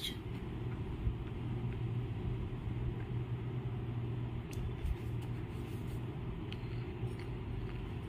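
Steady low hum and rumble of background noise, with a few faint clicks.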